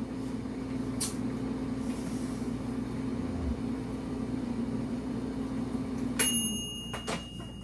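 A small electric motor hums steadily, then winds down and stops about six seconds in. A sharp noise and a thin high ringing tone follow.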